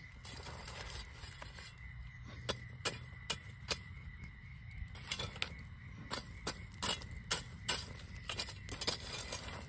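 Metal shovel scraping and clinking among glowing campfire coals as coals are dug out of the fire, with irregular sharp ticks and crackles from the coals and burning wood.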